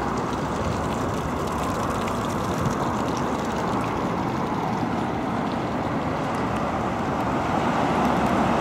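Road traffic: the steady noise of cars driving along a town street, growing a little louder near the end.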